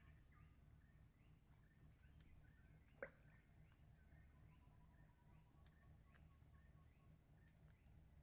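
Near silence, with faint small-animal chirps repeating about two to three times a second over a steady high whine. There is one sharp click about three seconds in.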